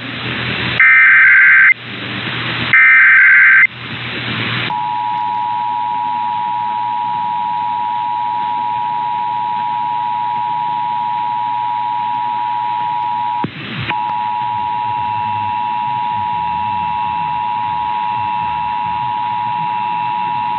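Emergency Alert System broadcast signal: the last two SAME digital header bursts, about a second each with hiss between them, then the steady two-tone attention signal. The attention signal breaks off briefly about two-thirds of the way through and resumes.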